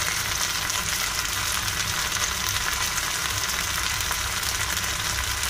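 Onions and ginger-garlic paste sizzling in oil in a kadai: a steady frying hiss with fine crackling.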